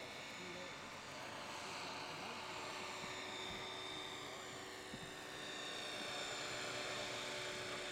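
Radio-controlled scale model helicopter (Eurocopter AS355 body on a Century Falcon frame) in flight: a steady whine of its motor and spinning rotors, growing a little louder about six seconds in as it comes closer.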